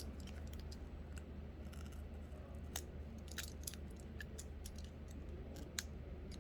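Faint, scattered small clicks and snips of a craft knife blade cutting through excess adhesive tape, over a low steady hum.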